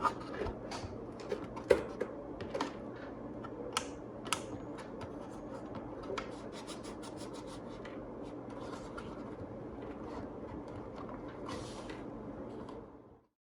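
Irregular clicks and scraping of an old transistor radio's on-off and band switches being worked back and forth, over steady low background noise. The switches are exercised to get a dead radio to draw current again. The sound cuts off abruptly near the end.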